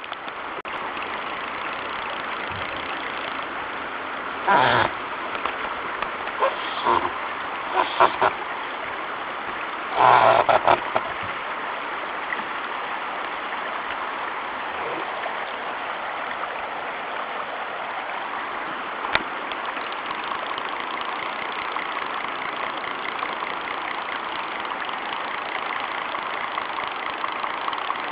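Steady hiss of rain falling on a river and its running current. A few short, louder calls break through between about four and eleven seconds in, the loudest about ten seconds in.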